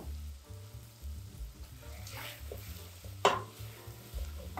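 Wooden spoon stirring diced potatoes and green onion sautéing in butter and olive oil in a stainless steel pot, over a light sizzle. The spoon scrapes about two seconds in and knocks sharply against the pot a second later.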